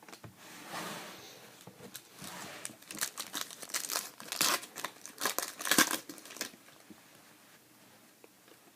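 A trading card pack's wrapper crinkling and tearing as it is ripped open, a run of irregular crackles for about six seconds, loudest just before it stops.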